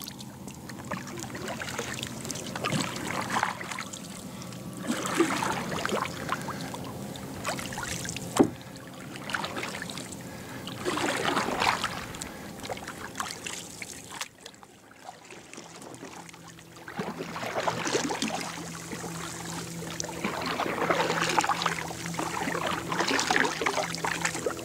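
Kayak paddles dipping and pulling through calm lake water, a splash and drip with each stroke every two to three seconds, with one sharp knock about eight seconds in and a faint low hum underneath.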